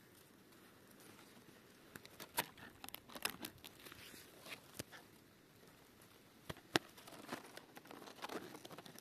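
Moss and dry forest litter rustling and crackling as a mushroom is pulled up from the moss by hand. There are faint, irregular crackles and clicks from about two seconds in, with one sharper click about two-thirds of the way through.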